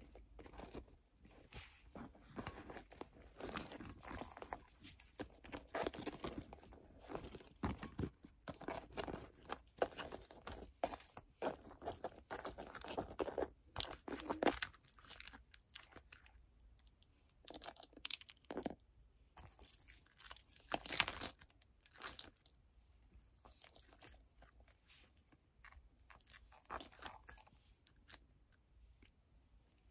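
Small leather wallets, card pouches and keyrings being picked up, shifted and set down by hand: irregular taps and clicks of metal clasps and hardware, keys jingling and light rustling, busier in the first two-thirds and sparser near the end.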